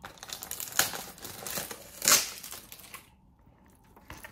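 Plastic film wrapper of a convenience-store triangle rice ball crinkling as it is handled, with two louder crackles about one and two seconds in, stopping about three seconds in.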